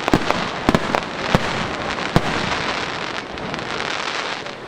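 Fireworks going off: several sharp bangs in the first two seconds or so over a continuous dense crackle, easing off toward the end.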